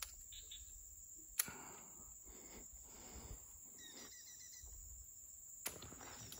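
Faint outdoor ambience: a steady high insect hum with a few short chirps, and three light clicks, the sharpest about a second and a half in.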